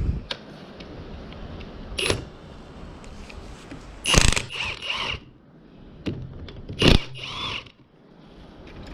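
Ratchet wrench loosening 14 mm bolts on a manual transmission case: bursts of quick metal clicks and knocks, loudest about four seconds in and again about seven seconds in.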